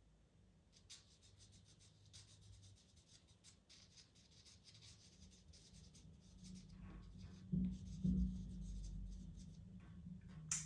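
Pastel pencil drawn across Pastelmat paper in many short, quick strokes, laying in soft patches of texture. A couple of low bumps come near the end, and a sharp click right at the end.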